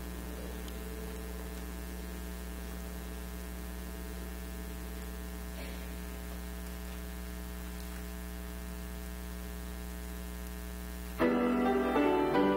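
Steady electrical mains hum with a stack of even tones. About eleven seconds in, a piano or keyboard suddenly starts playing much louder.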